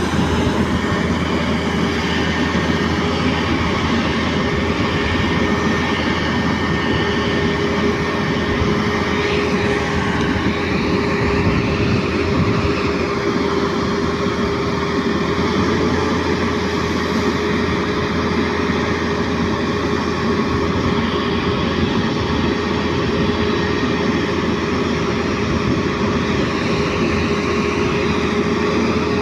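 Foton dump truck's diesel engine running steadily with a steady whine while its hydraulic hoist raises the tipper body. The pitch lifts slightly about halfway through.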